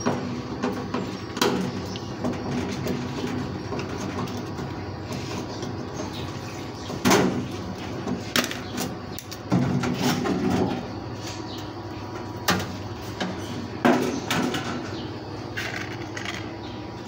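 Knocks, clatter and scraping as the washing machine's back panel is worked loose and taken off, with several sharp knocks at irregular intervals.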